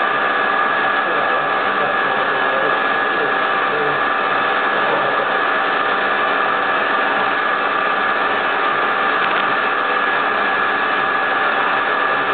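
High-speed CNC router spindle with a fine engraving bit, running steadily while it cuts into a clear plastic sheet: a constant whine of several steady high tones over a hiss.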